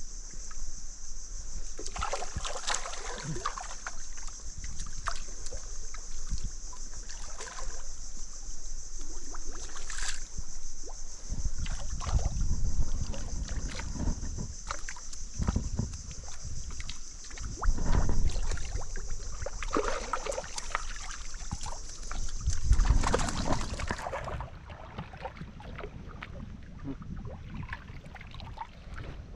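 Water sloshing and splashing with scattered knocks, under a steady high-pitched buzz that cuts off about 24 seconds in.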